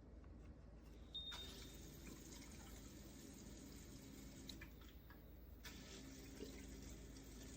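Faint, steady watery hiss over a low hum from an ultrasonic cool-mist humidifier running. The hiss grows slightly stronger about a second in.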